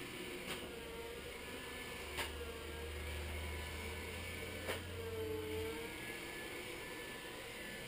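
iRobot Scooba 230 robotic floor scrubber running: a steady mechanical whir with a wavering whine. A low hum sets in about half a second in and stops near six seconds, and three sharp knocks come a couple of seconds apart.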